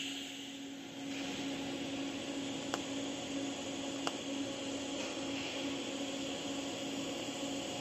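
TIG welding arc burning steadily while tack-welding a stainless steel pipe joint: an even hiss over a constant hum, starting about a second in, with two faint clicks in the middle.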